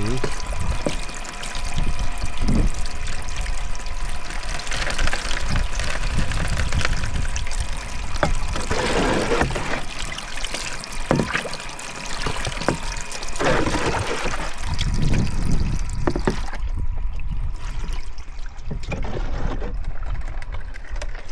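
Water sloshing, pouring and trickling in uneven swells, with scattered small clicks and a steady low wind rumble on the microphone.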